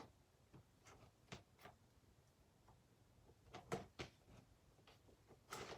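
Near silence with a few faint, short clicks and pops of thick glue slime being kneaded and stretched by hand, the strongest near the end.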